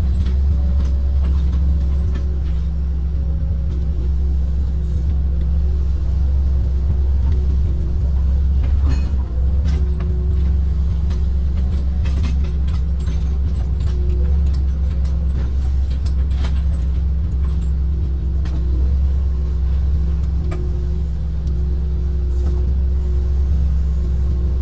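Kobelco amphibious excavator's diesel engine running steadily, heard from the cab, with scattered knocks and clanks as the bucket digs and dumps canal mud.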